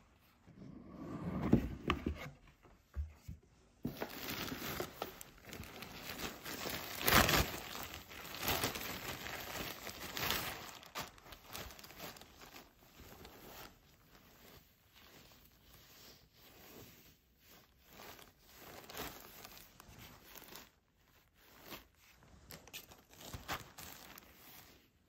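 Tissue wrapping paper crinkling and rustling as shearling hats are handled, busy and loudest for the first ten seconds or so, then softer scattered rustles.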